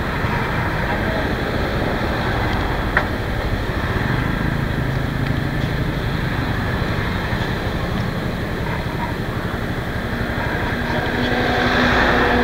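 Steady street traffic noise with motorbike engines running. It grows louder near the end as traffic passes close.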